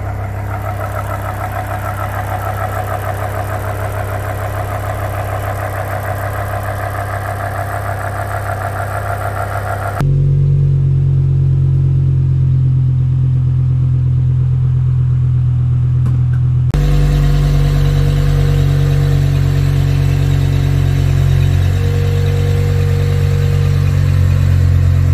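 BMW E60 M5's 5.0-litre V10 idling steadily through a custom aftermarket exhaust, with no revving. About ten seconds in the sound turns abruptly deeper and louder, and it shifts again a few seconds later.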